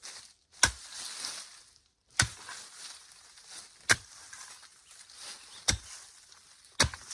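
A heavy hand tool chopping into the ground, five sharp strikes about one and a half seconds apart, each followed by a short rustle of soil and dry leaves.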